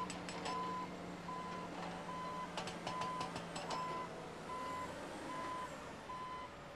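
Backup alarm on heavy quarry equipment beeping steadily, one short beep a little under every second. A heavy diesel machine hums low underneath. Two brief runs of rattling clicks come near the start and about three seconds in.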